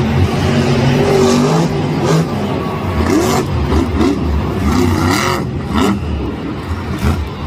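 Loud vehicle engine running and revving, with a rushing noise and shifting pitch throughout.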